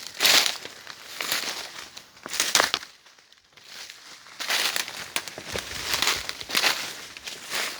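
Footsteps crunching through dry leaf litter and undergrowth: an irregular crackling crunch with each step, with a short pause about three seconds in.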